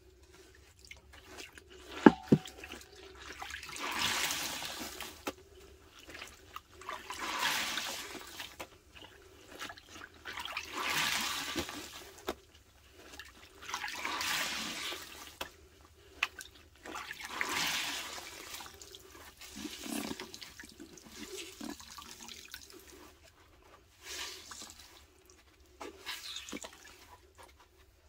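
Large porous sponges squeezed by hand over a stainless steel bowl: wet squelching and liquid rushing out of the sponge in repeated waves, about one squeeze every three to four seconds. A sharp knock about two seconds in.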